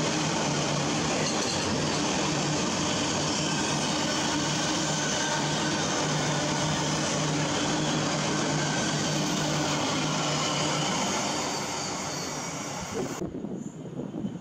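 Intermodal container freight train's wagons running past close by, a steady noise of wheels on rail with a low hum, dying away near the end as the last wagons clear.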